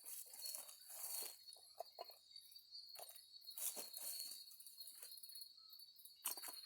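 Steady high chirring of insects, with faint scattered rustles and small cracks of twigs and kindling being handled at a small campfire.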